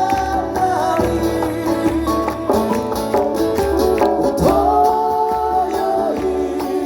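Live folk music: acoustic guitar accompanying singing, with the voices holding long notes of the chorus line.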